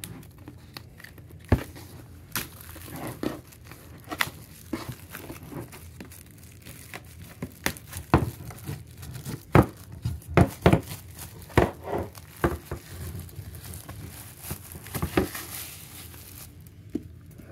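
Cellophane shrink-wrap being peeled off a wooden cigar box and crumpled, crinkling with an irregular run of sharp crackles that is loudest around the middle.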